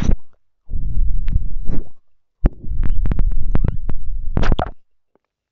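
Close-microphone ASMR mouth sounds: wet clicks and smacks over loud breathy rumbles of air hitting the microphone, in two long bursts.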